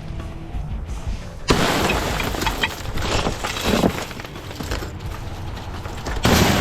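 Tempered glass shower door panel shattering all at once about a second and a half in, its pieces crackling and tinkling for a few seconds as it breaks into small beads. A second sudden crash of glass comes near the end.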